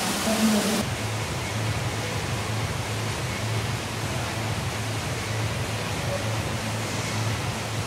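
Running water in a water park: a steady rush of falling and flowing water, with a low hum underneath. Less than a second in it changes abruptly from a brighter, louder splashing to a duller, even rush.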